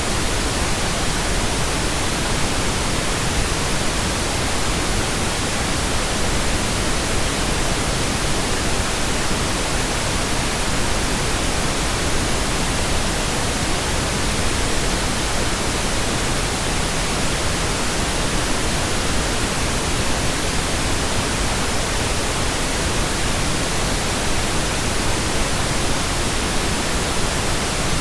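Steady synthetic pink noise, an even, unchanging hiss across all pitches, generated in Audacity.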